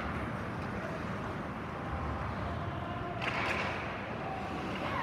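Ice hockey skates carving and scraping on the rink over a steady low rumble in a large, mostly empty arena, with a louder, hissing skate scrape about three seconds in.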